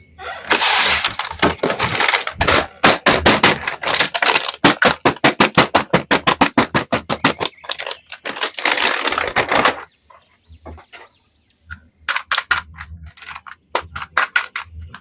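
Handling noise: stretches of rustling around a run of quick, even scraping strokes, about five a second, then a few scattered sharp clicks near the end.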